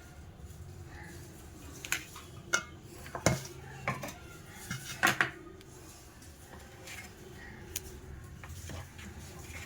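Kitchen utensils clinking and knocking against dishes, with several sharp separate strikes, the loudest about three and five seconds in.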